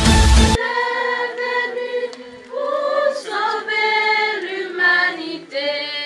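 A choir of young women singing a hymn unaccompanied, in long held notes. In the first half-second the tail of an instrumental intro theme plays and then cuts off abruptly.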